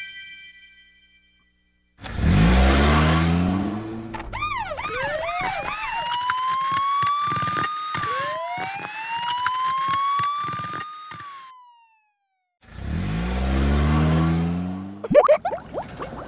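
A cartoon police car: an engine rumbles as it speeds off, then its siren gives a quick chirping start and two long rising-and-falling wails, followed by another engine rumble and a short cluster of sharp effect sounds near the end.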